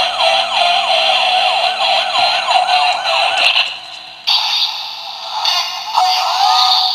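Electronic sound effects from a light-up toy blaster's built-in speaker: a siren-like warble of rapid repeating pitch sweeps, about four a second over a steady tone. It breaks off about four seconds in and gives way to a second hissy effect with a rising glide near the end.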